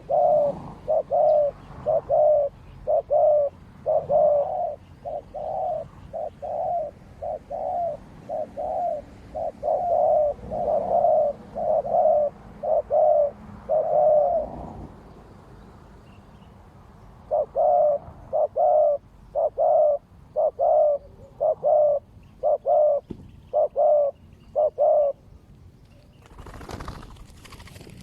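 Spotted doves cooing: a long series of evenly spaced low coos, about one and a half a second, breaking off about halfway and then starting again for another run.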